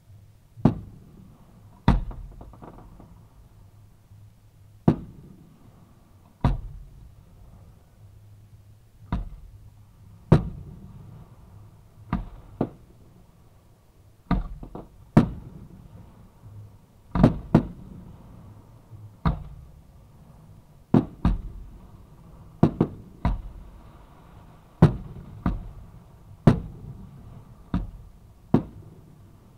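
Fireworks going off from the shoot site: about two dozen sharp bangs at irregular intervals, sometimes two close together, each trailing off briefly.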